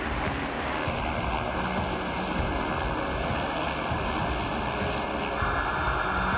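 Jet aircraft engines running, a steady, continuous noise whose character changes slightly about five seconds in.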